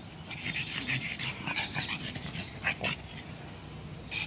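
A pug panting, with a few short sharp sounds between about one and a half and three seconds in.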